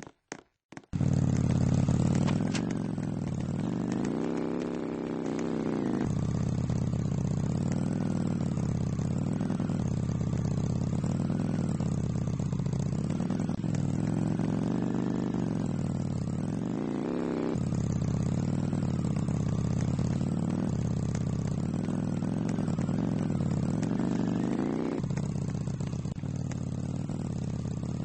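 A motor starting abruptly about a second in and then running steadily, its pitch rising and falling gently every few seconds.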